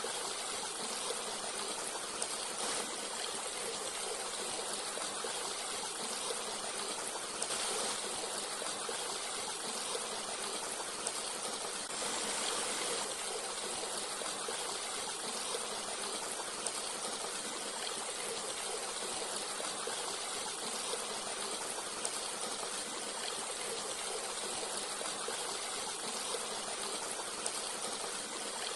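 Forest stream flowing steadily, an even rush of running water with no pauses.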